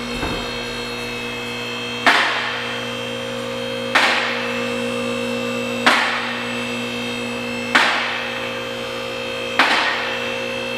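Two-post car lift raising a car: its electric hydraulic pump motor hums steadily, and the lift's safety locks clack once about every two seconds as the arms climb past each lock stop, five times in all.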